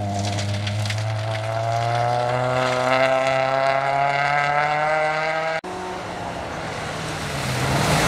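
Rally car engine accelerating hard, its note rising steadily as it pulls away. The sound cuts off abruptly about five and a half seconds in, then a second rally car's engine is heard approaching, growing louder near the end.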